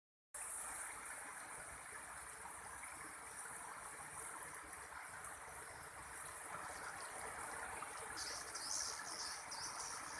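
Swiftlet lure call played through a speaker: a steady, hiss-like chatter, with a few brief higher chirps near the end.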